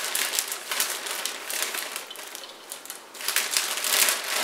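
Plastic bag of shredded coleslaw mix crinkling as it is shaken and squeezed, the shreds pouring out into a bowl; the rustling grows louder about three seconds in.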